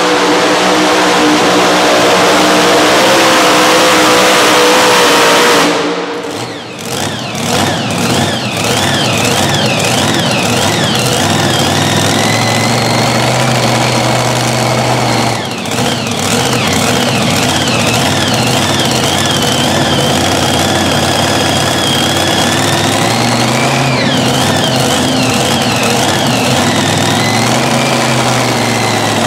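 Supercharged engine of a Mini Unlimited pulling tractor running flat out under load. About six seconds in it is cut back, and it then idles with a warbling high whine and a low note that comes and goes.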